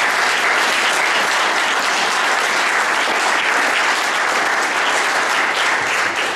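Audience applauding steadily: many people clapping together.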